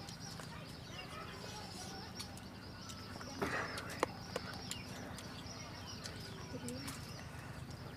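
Birds chirping again and again over a steady low hum. About three and a half seconds in there is a brief rustle, then a sharp click.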